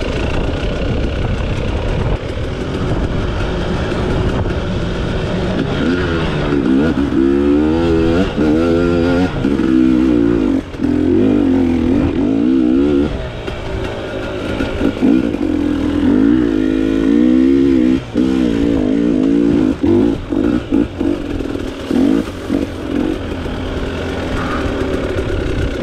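A KTM 300 XC-W two-stroke dirt bike engine under way on a trail, its note rising and falling repeatedly with the throttle. Near the end it drops off briefly several times as the throttle is rolled off and back on.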